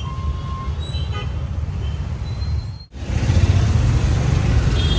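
Steady low outdoor rumble, like street traffic or wind on the microphone, with a few faint short high tones. The sound drops out briefly about three seconds in and comes back louder.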